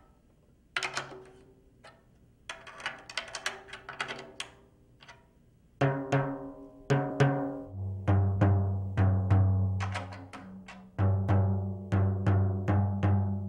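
Pearl tom-tom heads being tuned: light drumstick taps in quick runs near each lug, then from about six seconds in louder strikes with a clear pitched ring. From about eight seconds a deeper drum, the 16-inch floor tom, is struck about twice a second to check its tone.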